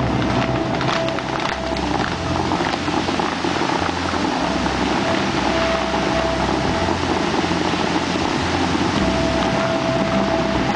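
The Dubai Fountain's water jets shooting up and spraying, heard as a steady rushing of water. A few sharp crackles come in the first three seconds.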